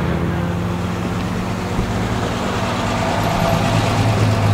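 Car engine running steadily, dipping a little and then growing louder again near the end.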